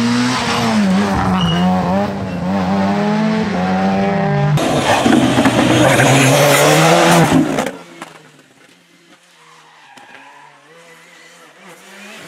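Rally car engine revving hard, its pitch rising and falling through gear changes. About four and a half seconds in, a loud rush of tyre skidding noise takes over and cuts off abruptly about three seconds later, leaving much quieter background sound.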